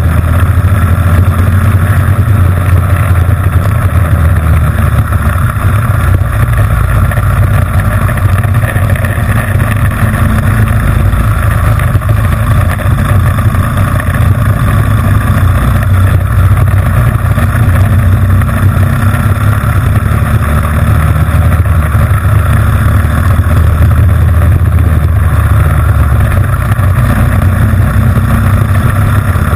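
Honda GX160 single-cylinder four-stroke engine running hard under racing load, heard onboard as a loud, steady drone that shifts slightly in pitch about a second in and again near the end.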